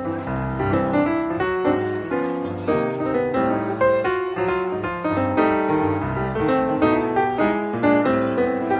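Background piano music, a steady flow of notes.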